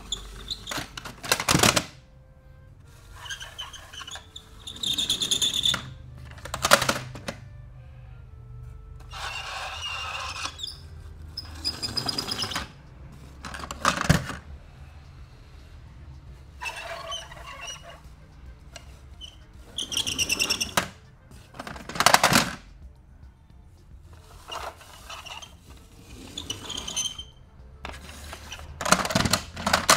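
Plastic toy cars and hauler trucks being handled: wheels rolling and scraping across a corrugated plastic sheet, toys rattling as they are rummaged in a cardboard box, and sharp plastic clacks as they are set down. About a dozen separate bursts, some lasting a second or more, with a few short knocks between them.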